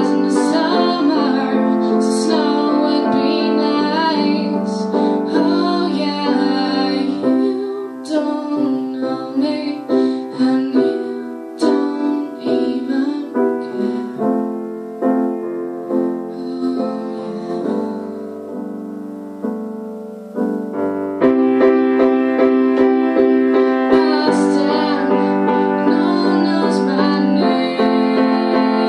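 A teenage girl sings into a microphone to a grand piano accompaniment. Through the middle the music drops back to softer, separately struck piano notes, then comes back fuller and louder about two-thirds of the way through.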